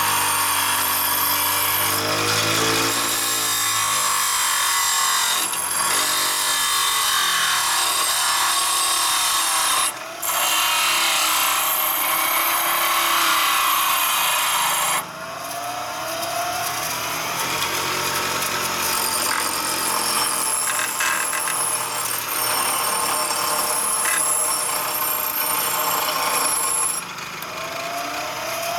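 Handheld power grinder at high speed grinding down the corner of a steel engine part so that it clears: a high whine over a grinding rasp. It stops for a moment about ten seconds in, runs lighter from about halfway, and eases off near the end.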